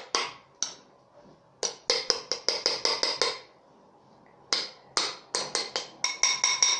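Quick runs of light clinking taps on a hard object that rings briefly with a clear pitch, like glass or crockery being tapped, in three bursts of several taps each.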